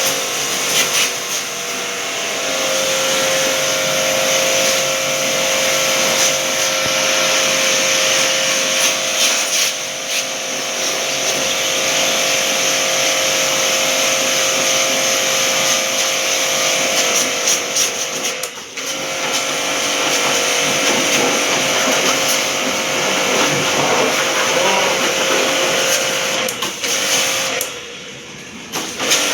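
An electric AC-cleaning machine running with a steady motor whine over a strong hiss. It dips briefly about two-thirds of the way through, then drops away for a second or so near the end before picking up again.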